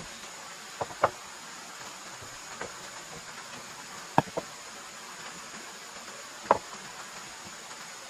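Bamboo poles knocking against one another as they are laid side by side into a floor: about half a dozen sharp knocks, some in quick pairs, the loudest a little after four seconds and near six and a half seconds.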